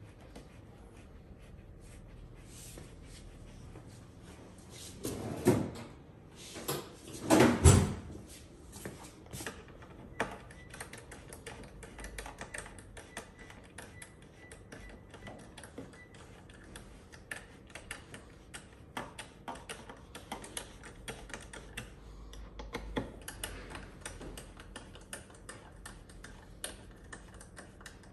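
Small screws being worked into a motorcycle's plastic windscreen and cowl with a slim hand screwdriver: scattered light ticks and clicks of the metal tool on the screws and plastic. There are two louder, brief clatters of the plastic being handled, about five and seven seconds in.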